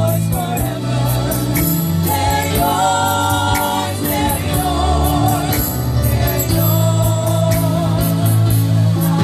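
Gospel singing by a praise team with instrumental accompaniment: long held, wavering vocal notes over steady bass notes and a regular beat.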